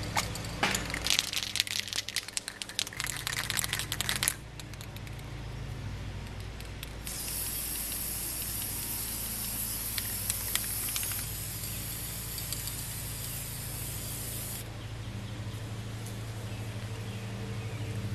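Aerosol spray-paint can: a quick run of sharp rattling clicks for the first four seconds or so as the can is shaken, then the paint sprays in a steady high hiss for about seven seconds.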